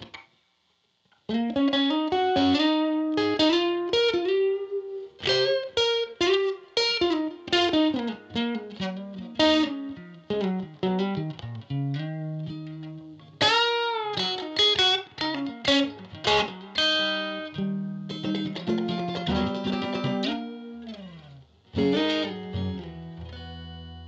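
Fender Stratocaster electric guitar played through a Universal Audio OX Amp Top Box on its 'Tiny Combo' preset, a simulated miked 1x10 combo amp. It starts about a second in with a picked single-note melodic line with string bends, moves into a run of chords, and ends on a chord left to ring out.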